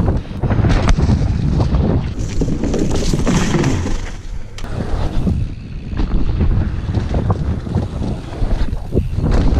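Mountain bike descending a leaf-covered dirt trail at speed: a continuous rumble of wind buffeting the microphone and tyres rolling over wet leaves and mud, broken by frequent short knocks and rattles from the bike over bumps.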